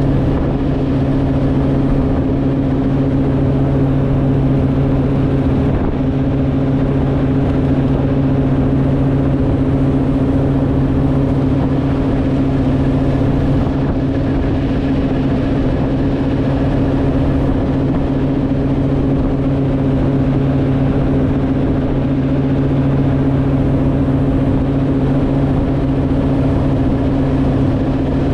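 Inboard ski boat engine running at a steady towing speed, a constant drone with the rush of the wake and spray behind the hull.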